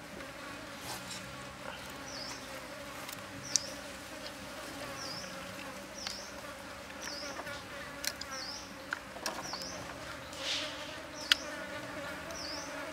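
Insects buzzing steadily in the surrounding forest, with a short high chirp repeating about once a second. A few sharp taps and clicks come from raw squid being pushed onto a bamboo skewer.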